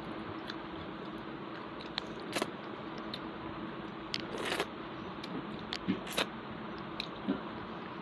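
Close-miked eating sounds: chewing a mouthful of rice eaten by hand, with scattered short crunches and clicks, some of them fingers mixing rice on a steel plate, over a steady background hiss.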